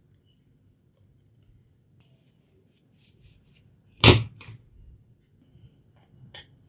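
Small hose fittings and hand tools handled on a wooden tabletop. There are a few light clicks, then one sharp clack about four seconds in, like a tool or part set down on the wood, and then more small clicks.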